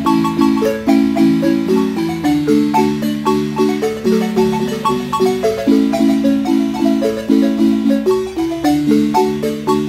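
Wooden marimba played live by several players with mallets, a son: steady low chords under a quick melody of struck, ringing wooden bars, with an even beat.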